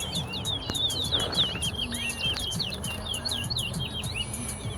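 Caged towa-towa finches singing a rapid song of quick, sweeping chirps in a singing competition, where each song is counted.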